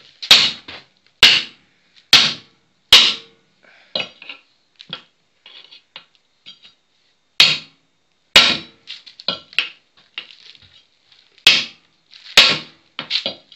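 Sledgehammer blows on a steel angle wedged at a tubeless tyre's bead, breaking the bead off a steel wheel rim. Sharp metallic strikes: four about a second apart, then two pairs later on, with lighter knocks and scrapes between, as the bead starts to slide off the rim.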